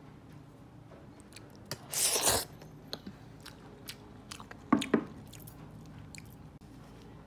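Metal fork stirring saucy instant noodles in a ceramic bowl: wet squishing with small clicks of the fork against the bowl, and two louder clatters of the bowl and fork, about two seconds and about five seconds in.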